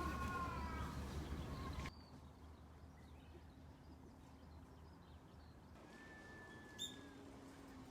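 A bird calling a few times in gliding notes, cut off abruptly about two seconds in. Then a quiet background with a faint steady tone and one sharp click near the end.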